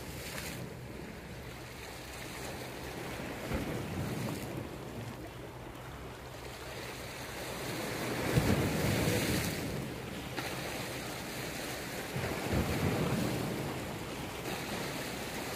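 Sea waves washing and breaking against rocks, with wind buffeting the microphone; the loudest wave breaks about eight seconds in, and a smaller one about twelve seconds in.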